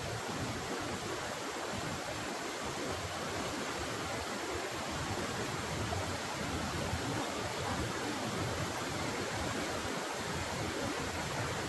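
Shallow rocky stream running steadily, its water rushing over stones in an even, unbroken noise.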